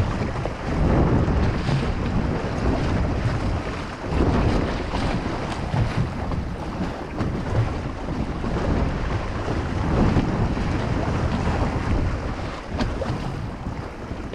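Wind buffeting the microphone in gusts over choppy saltwater slapping against the hull of a small bay boat.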